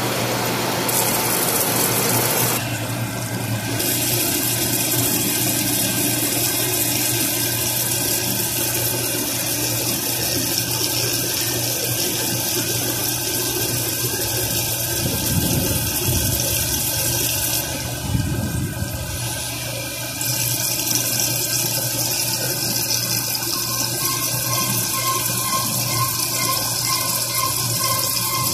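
Wire EDM machine cutting steel, its coolant pouring and splashing steadily over the cut, with a low machine hum underneath. The high hiss drops away briefly twice.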